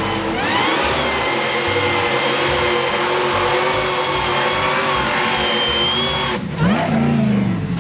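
A motor running loudly and steadily. Its pitch rises over the first second, and it dips briefly about six and a half seconds in.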